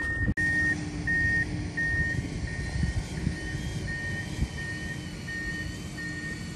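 An electronic beeper sounding evenly, about three short beeps every two seconds, like a backup alarm. Under it runs the faint whine of the Traxxas TRX-4 Sport RC truck's electric motor as the truck crawls on Traxx tracks through sand.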